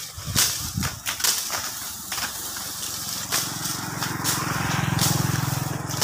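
Tall grass stalks rustling and snapping as they are cut and cleared by hand. From about three seconds in, a low engine hum joins and grows louder.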